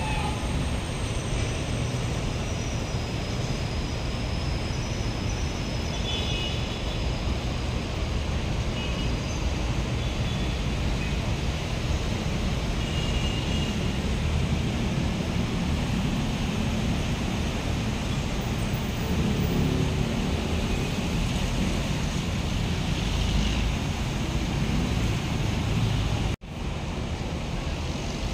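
Busy road traffic: buses, jeepneys and cars passing close by, a steady low rumble of engines and tyres. The sound cuts out for an instant near the end.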